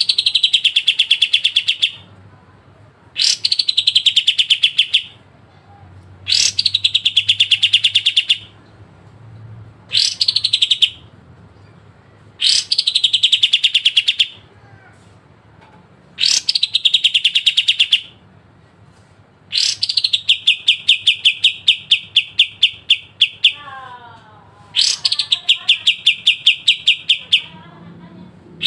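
A kapas tembak singing a sharp, rapid trill: about nine separate phrases of one to two seconds each, with short pauses between them. Each phrase opens with a high note that sweeps down into a fast run of clipped notes.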